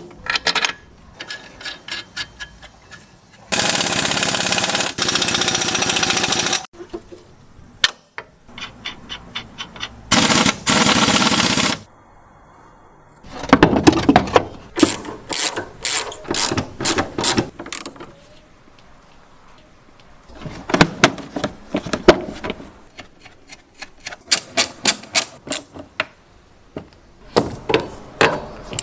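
Impact wrench running in steady bursts, one about three seconds long and shorter ones later, tightening the bolts of a newly fitted shock absorber's top mount. Between the bursts come runs of quick metallic clicks and knocks from hand tools.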